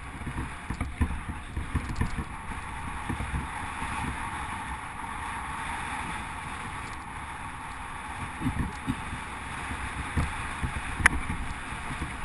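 Mountain bike rolling along a gravel forest track: a steady rush of wind and tyre noise, with irregular knocks and rattles as the bike and mounted camera jolt over bumps, and one sharp click about eleven seconds in.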